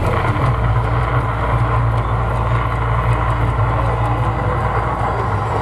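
The Mirage volcano show erupting: a loud, steady, deep rumble from the show's sound and its gas fire effects as the flames flare up along the volcano's rim.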